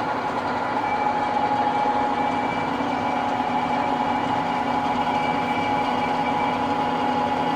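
LeBlond 20-inch engine lathe running steadily with its spindle and chuck turning forward, a constant mechanical hum with a steady gear whine from the headstock.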